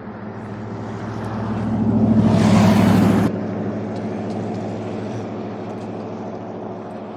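A motor vehicle's engine running steadily. A rush of noise swells over about two seconds, then cuts off abruptly a little past three seconds in.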